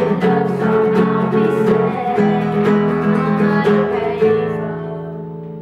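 Acoustic guitar strummed, with voices singing along. A last strummed chord about four seconds in rings out and fades away.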